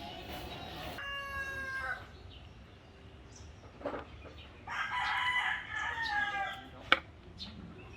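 Rooster crowing: a short call about a second in, then a longer crow about five seconds in. A single sharp click comes just before the end.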